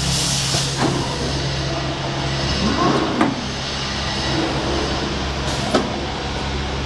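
Comandulli Athena CNC stone edge-polishing machine running with a steady mechanical hum. A brief hiss comes at the start and three sharp clicks fall through it.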